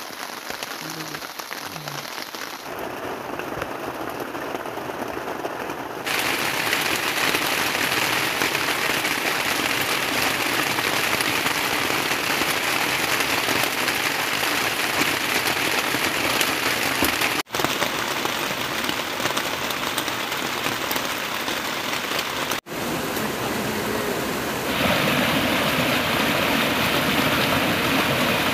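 Heavy rain falling steadily, an even hiss that grows louder a few seconds in and again near the end, broken twice by an instant of silence.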